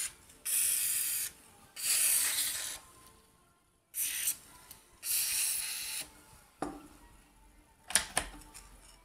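Tri-Flow aerosol lubricant hissing out of its can through an extension straw into the open underside of a Singer 401A sewing machine, in four bursts of about a second each. A few sharp clicks follow near the end.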